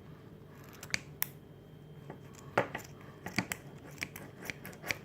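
Scissors snipping at the rubbery filling of a mesh squishy ball: a dozen or so faint, irregular clicks and snips.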